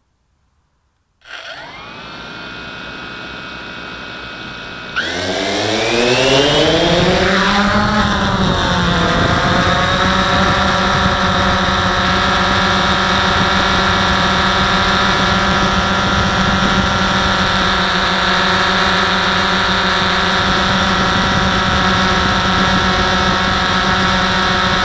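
DJI Phantom 1 quadcopter's four brushless motors and propellers, heard close from the onboard camera. The motors start about a second in and spin at idle. About five seconds in they throttle up with a rising whine for take-off, waver for a few seconds, and then settle into a steady hum in flight.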